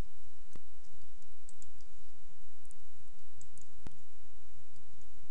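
Two sharp computer mouse clicks, about three seconds apart, over a steady low hum from the recording microphone, with a few faint high ticks in between.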